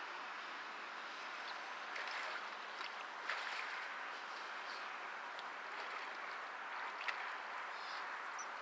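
Steady outdoor background hiss with a few faint ticks and clicks, the clearest about three seconds in and again about seven seconds in.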